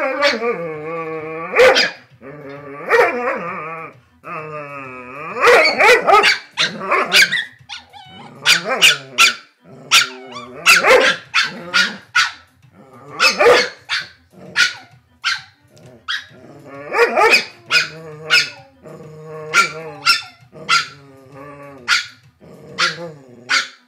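Dogs vocalizing in play: drawn-out growly grumbles over the first few seconds, then many short, sharp barks and yaps with more grumbling between them.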